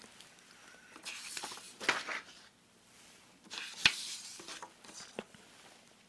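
Soft paper rustling with a few sharp clicks, in two spells of about a second each: script pages being handled on a stand at a close microphone.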